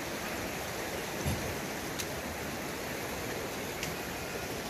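Steady rushing noise like running water, with a soft low bump about a second in and a couple of faint clicks.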